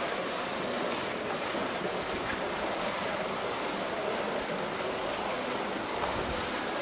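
Steady rushing of water in a polar bear's pool, an even hiss with no distinct splashes.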